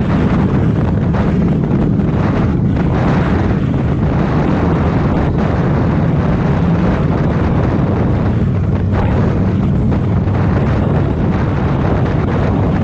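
Harley-Davidson V-twin motorcycle running steadily at road speed, with wind rushing over the microphone.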